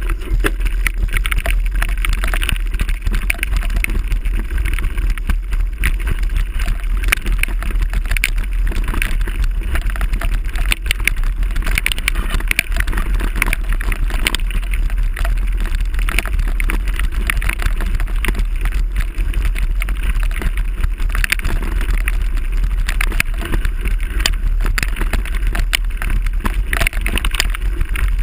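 Mountain bike ridden over rough ground, heard from a camera mounted on the handlebar: constant wind buffeting on the microphone with a steady, dense rattle and clatter of tyres and bike.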